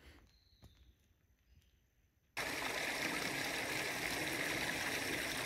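Near silence with a few faint ticks, then, about two and a half seconds in, an abrupt cut to the steady rush of spring water flowing in a creek.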